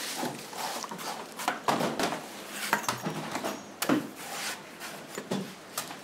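Irregular knocks and scrapes of a large knife trimming the husk off a young green coconut on a wooden chopping block, the sharpest knock about four seconds in.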